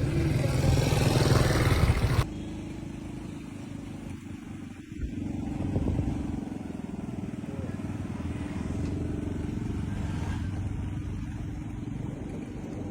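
Motor vehicle engine noise with some voices in the background. About two seconds in, a louder, noisier stretch cuts off abruptly and gives way to a quieter, steady low engine hum.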